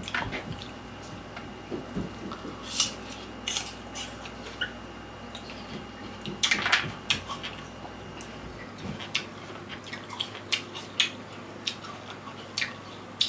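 Close-miked mukbang eating of fresh fruit: crunching bites of apple and wet chewing of orange segments, heard as short irregular clicks and crackles with a denser burst about halfway through.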